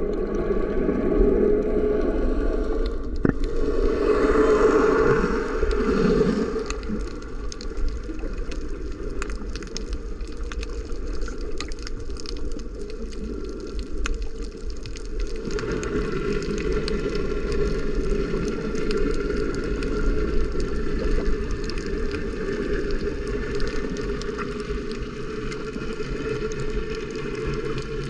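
Water sloshing and gurgling over a constant low rumble, the sound changing character about three seconds in and again about halfway through.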